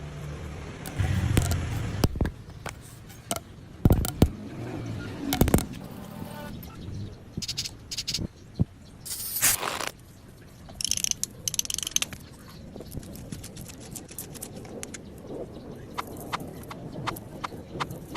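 Irregular clicks, knocks and scrapes from hard objects being handled, with a few short hissing scrapes.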